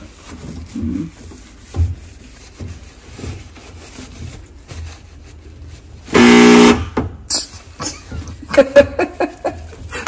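A single loud, steady horn-like honk lasting about half a second, a little past the middle. Around it, faint rubbing and handling noise from a paper towel wiping the knobs of a stainless steel gas cooktop.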